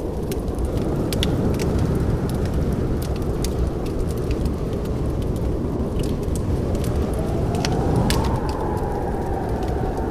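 Wood fire burning in a fireplace: a steady low roar with scattered sharp crackles and pops. A faint thin whistle rises about seven seconds in and holds to the end.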